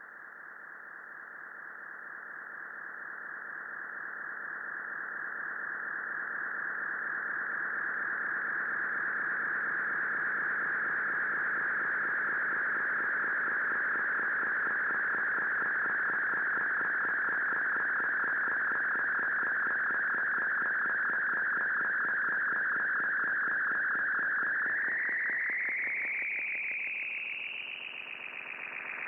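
Altai EC-500 bucket-brigade (BBD) analog delay self-oscillating with its feedback turned up: a sustained, gritty electronic feedback tone that swells over the first several seconds and then holds steady. About 25 seconds in, it glides upward in pitch and briefly dips in level near the end.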